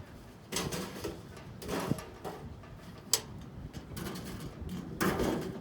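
Scraping and knocking of discarded junk being handled, in several short irregular bursts, with one sharp click about three seconds in.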